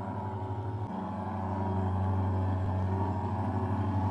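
Portable motorized disinfectant fogger running steadily: a fast, even engine drone that grows louder about a second in.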